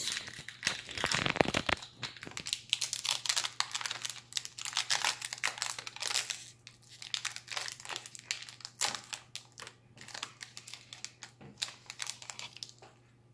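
Foil wrapper of a Pokémon TCG Battle Styles booster pack being torn open and crinkled by hand: a dense run of crackling that thins out near the end.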